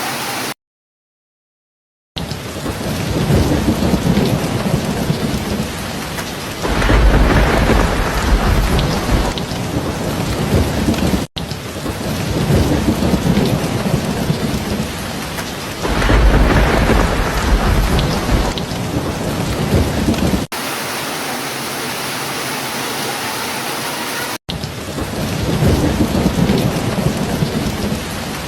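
Steady rainfall with deep rolls of thunder that swell up about every nine seconds. About half a second in there is a second and a half of dead silence, and near the end the sound briefly switches to a plainer, even rushing hiss without thunder.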